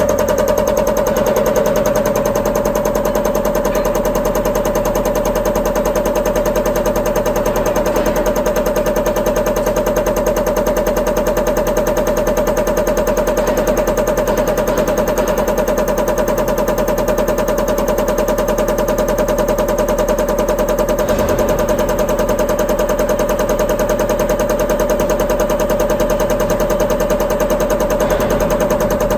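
EUI/EUP cam box on a common rail injector test bench, running at about 600 rpm and driving the unit injector through a fuel-delivery test step. It makes a steady, fast mechanical clatter over a constant tone.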